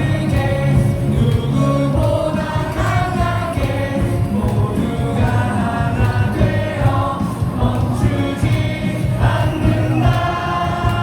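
Baseball stadium crowd singing a team cheer song together over loud amplified music.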